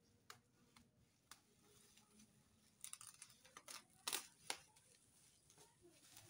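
Plastic bubble wrap being cut with scissors and pulled off a box: scattered crackles and snips, thickest in the middle and loudest a little after four seconds in.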